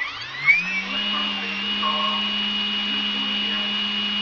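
EMAX GT4030 brushless motor run through its ESC under radio throttle, spinning up over about the first second and then holding a steady whine.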